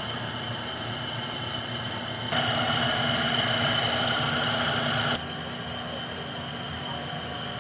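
Steady hiss and hum from a pan of soup simmering on a gas burner. It gets louder for about three seconds in the middle, then drops back abruptly.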